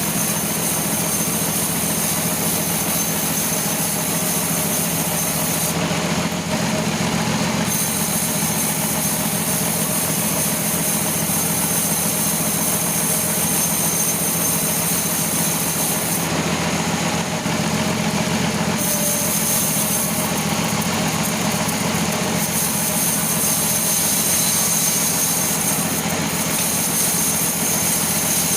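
Sawmill machine saw running steadily: a constant mechanical drone with a thin high whine over it.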